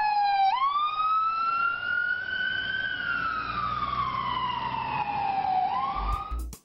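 Emergency vehicle siren wailing: the pitch climbs over about two seconds, falls slowly for about three, starts to climb again near the end, then cuts off.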